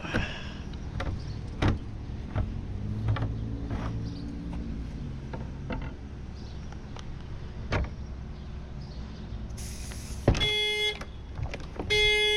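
Scattered light clicks and knocks of lockout work on the car door. About ten seconds in, the car's alarm goes off: the horn sounds in short repeated blasts about a second and a half apart.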